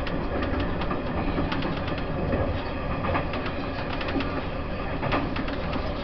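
Taiwan Railways E1000 push-pull Tze-Chiang express under way: a steady low rumble of wheels on rail with frequent, irregular clicks and knocks.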